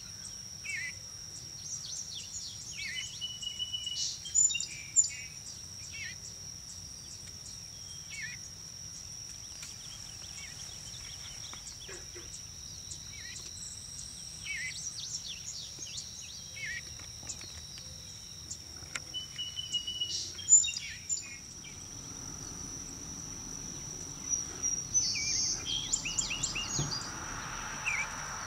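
A steady high-pitched insect drone, with short bird chirps and calls dotted through it. The calls come in small clusters, the loudest about four to five seconds in and about twenty seconds in, and another run comes near the end.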